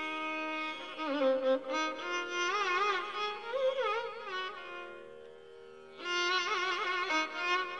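Background music: a bowed-string melody with wide vibrato and sliding ornaments over a steady drone, in an Indian classical style. The melody fades down about four and a half seconds in and comes back strongly at about six seconds.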